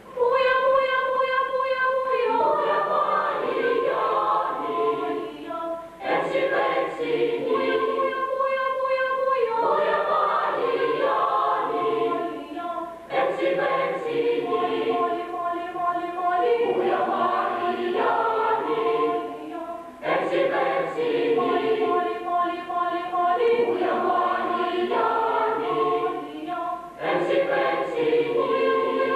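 Boys' choir singing in several parts, starting together at once and going in phrases of about seven seconds with short breaks between them.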